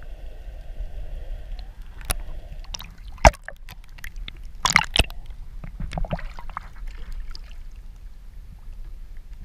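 Water sloshing and gurgling around a camera held under the surface, with a few sharp knocks and splashes; the loudest knock comes about three seconds in, and a cluster follows around five seconds.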